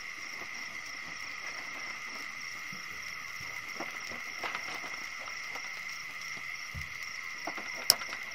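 A steady chorus of night insects, an even high trill that never lets up. Behind it come a few soft taps of a knife on a cutting board as meat is sliced, and a sharp click near the end.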